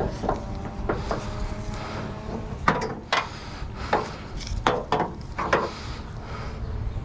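Scrap being handled: a series of irregular knocks and clanks, some with a brief metallic ring, loudest through the middle.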